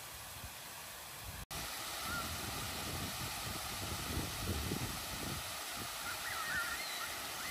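Ground-level fountain jets spraying and splashing, a steady hiss of falling water. After a brief cut about a second and a half in, the spray goes on with an uneven low rumble beneath it. A few short wavering bird calls come in near the end.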